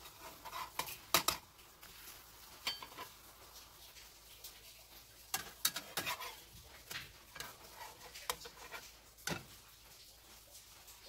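Metal spatula clicking and scraping against a nonstick frying pan while a pancake is flipped and lifted out: scattered sharp clicks and short scrapes, loudest about a second in, with more around five to seven seconds in and once more near nine seconds.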